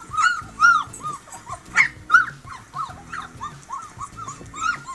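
Young puppies crying: a rapid run of short, high, rising-and-falling whimpers, two or three a second, over faint background music.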